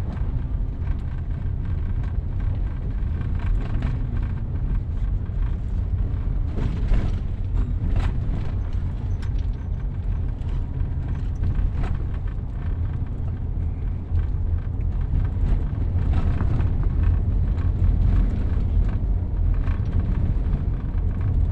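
In-cabin road and engine noise of a Toyota car driving over a rough, unpaved road: a steady low rumble with a few short knocks and rattles from bumps.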